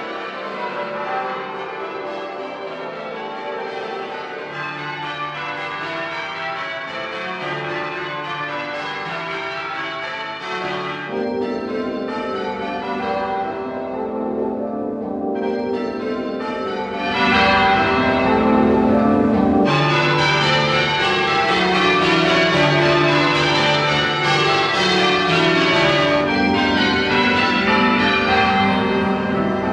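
Many church tower bells, swung full circle on their wheels, ringing at once in overlapping patterns. The sound thickens about 11 seconds in and grows louder and brighter again about 17 seconds in.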